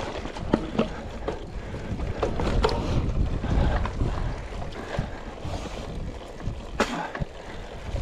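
Mountain bike riding down a rough trail: wind rumbling on the microphone, with scattered clicks and rattles from the bike over the ground.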